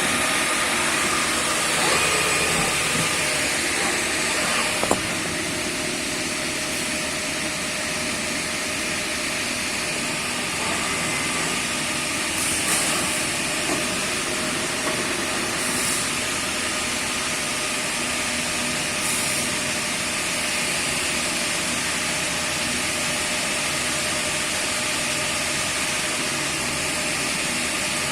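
A grinder running steadily: a constant, even, hissing machine noise with a faint hum, with a few light knocks in the first few seconds.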